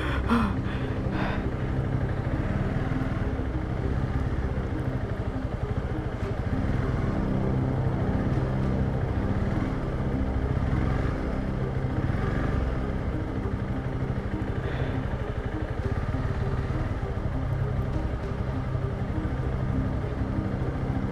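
Honda CRF300 Rally's single-cylinder engine running at low, steady revs as the motorcycle creeps along in low gear.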